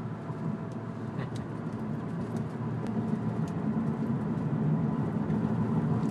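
Car in motion heard from inside the cabin: a steady low rumble of engine and road noise that grows gradually louder.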